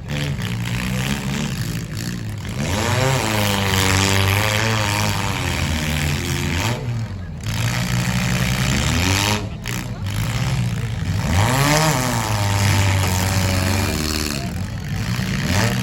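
Four-cylinder demolition-derby car engines running hard and revving, their pitch rising and falling again and again as the cars accelerate and back off.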